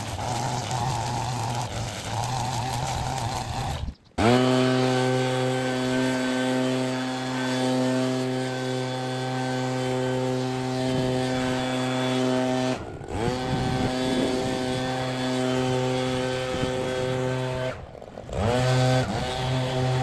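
A string trimmer runs for the first few seconds. After a sudden break, a backpack leaf blower's engine runs steadily at high throttle, twice cutting out for a moment and coming back with its pitch rising.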